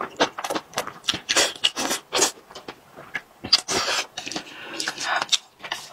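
Close-miked mukbang eating sounds: a string of short, sharp slurps of thick saucy noodles, with wet chewing and lip smacks in between.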